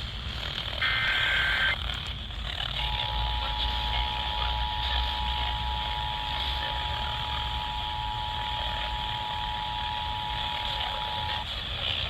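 Emergency Alert System SAME header data burst about a second in, then after a short gap the two-tone EAS attention signal sounds steadily for about nine seconds and stops just before the end. It marks a Required Monthly Test being relayed. A steady hiss and hum from the broadcast receiver lie under it.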